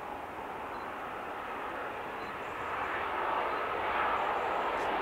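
Airbus A330 airliner on short final, its jet engines running at approach power. The steady roar grows louder about three seconds in as the aircraft nears.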